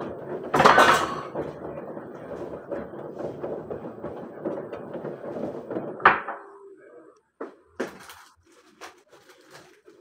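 Dishes and food containers being handled on a kitchen countertop: a loud clatter about a second in, a sharp knock at about six seconds, then lighter scattered clicks.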